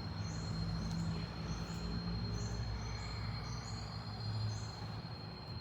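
Steady low hum with a thin, steady high whine, over which a series of short, faint high-pitched chirps repeats about every half second to second.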